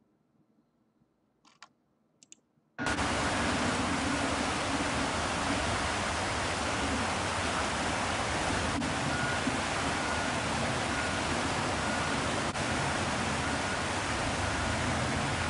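Fast floodwater rushing in a flooded creek, a loud, steady, even roar. It cuts in suddenly about three seconds in, after near silence broken by a couple of faint clicks.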